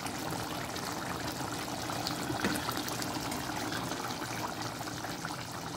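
Chicken curry gravy simmering in a pan: a steady bubbling hiss with faint small pops.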